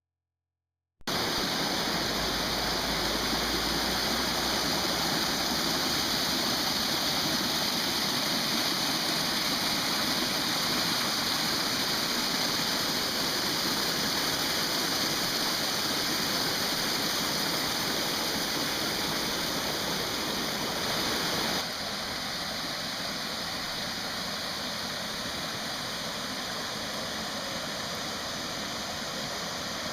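Waterfall water rushing and splashing as a steady, even hiss, starting about a second in and dropping a little in level about two-thirds of the way through.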